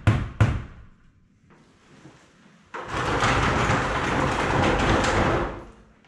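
A hammer striking a nail twice, about a third of a second apart, ending a quick, even run of blows. After a pause, a steady rushing noise starts suddenly and lasts about three seconds.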